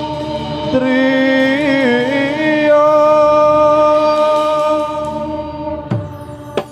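Javanese sung chant: a voice holding long, ornamented notes that waver in pitch over a steady drone. A couple of sharp drum strikes come near the end.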